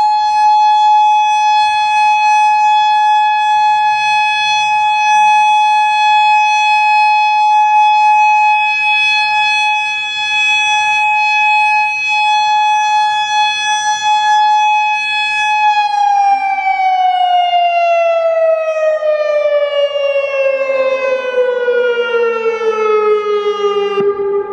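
Federal Signal Modulator 6048 electronic outdoor warning siren, which has some blown drivers, sounding a steady alert tone. About two-thirds of the way in, the pitch begins to glide smoothly down, falling to about half its starting pitch near the end.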